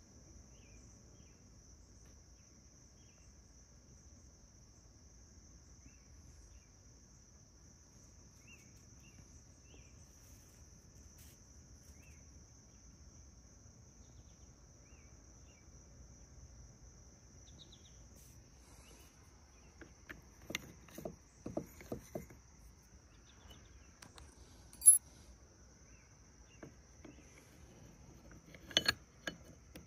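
A steady high cricket trill. From about two-thirds of the way through, a run of light clicks and knocks from the metal parts of a disassembled TDI vacuum pump being handled, including one sharp knock and a few clicks near the end as the rotor goes into its housing.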